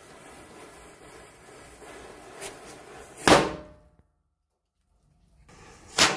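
Burning matchstick chain crackling and hissing, with a small pop, then a Diwali firecracker going off with one loud bang about three seconds in. After a brief gap, another loud firecracker bang near the end.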